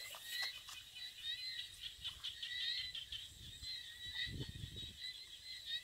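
A steady chorus of high, rapid chirps from small animals. There are a few low thumps about three and a half to five seconds in.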